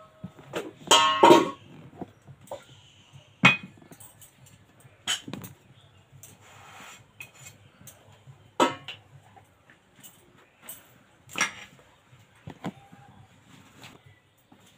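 Metal tongs clinking against a metal tawa and the clay stove as roti are turned and puffed over an open wood fire, with four sharp clinks spread through. A short pitched call about a second in is the loudest sound.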